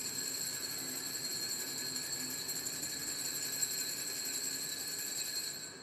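Altar bells rung without pause at the elevation of the consecrated host: a steady, high, shimmering ringing that starts abruptly and stops near the end.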